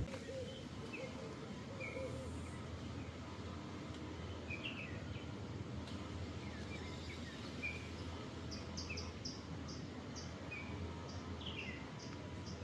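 Outdoor ambience of birds chirping, with scattered short chirps and, in the second half, a run of short, high repeated peeps, over a steady low background hum.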